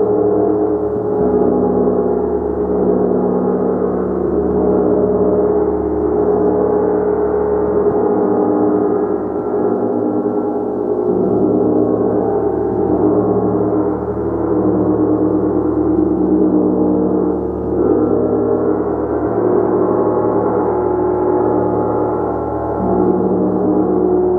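Gong played in a continuous, sustained wash of overlapping tones, swelling and easing gently in loudness with no single strike standing out.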